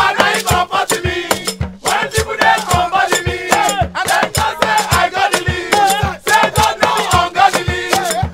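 A group of men singing together loudly, accompanied by hand drums beating a steady rhythm of about three strokes a second.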